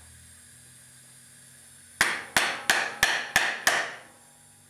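Six light hammer taps, about three a second, on a wooden block held against the exhaust valve of a Honda CB550 cylinder head, trying to knock loose carbon that is keeping the valve from sealing.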